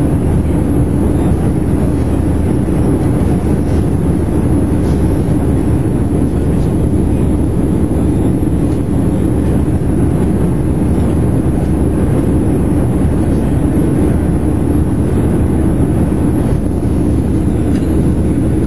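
Steady cabin noise inside a Boeing 737-700 climbing out after takeoff: the CFM56-7B turbofan engines and the airflow make an even low rumble with a steady hum, unchanging throughout.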